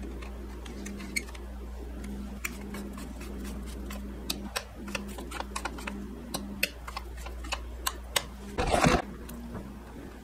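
Small metal clicks and taps as a knurled knob is screwed onto the Pfaff 1245's stitch-length lever and the lever is worked in its slot, over a steady low hum. A louder brief clatter comes near the end.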